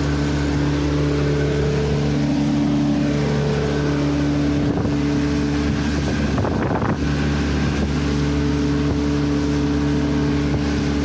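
Small boat's outboard motor running steadily under way, its even engine note over the rush of water and wind past the hull.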